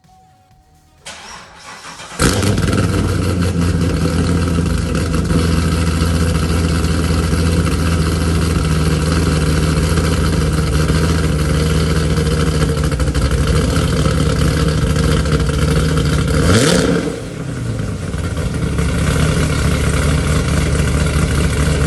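A C5 Corvette's V8 engine cranking and catching about two seconds in, then running steadily, with one short rev and drop about three-quarters of the way through.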